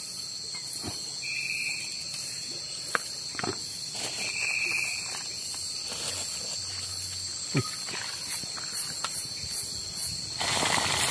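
Crickets and other night insects trilling steadily, with a few light clicks of handling and a short run of louder high chirps near the end. About ten seconds in it switches to the hiss of fish frying in hot oil in a pot over a wood fire.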